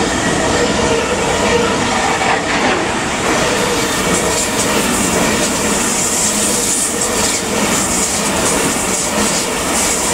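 Trains running through a station: the steady, loud rolling noise of an ICE high-speed train moving slowly along the platform, mixed with a long container freight train passing on the adjacent track, its wheels running over the rails.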